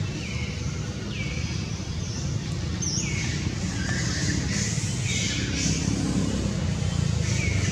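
Steady low rumble of passing vehicles, with short high chirping calls that fall in pitch, repeated about one or two times a second.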